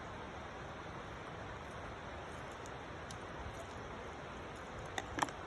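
Steady rushing of a river, an even noise that does not change, with two short sharp knocks close together about five seconds in.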